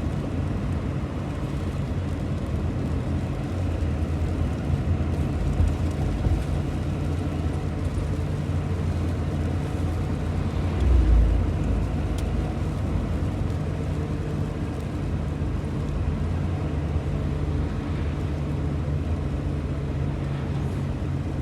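Steady road and engine noise inside a moving vehicle's cab, a low hum over tyre rumble, with a brief low thump about halfway through.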